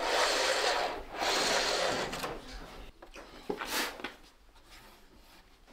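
OO gauge model railway coach pushed back and forth along the track by hand, its wheels rolling on the rails with a rushing rattle. There are two strokes of about a second each, then a shorter, fainter one partway through.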